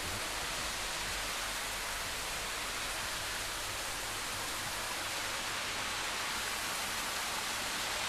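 Steady rush of water from an artificial waterfall splashing into a resort pool, even and unbroken.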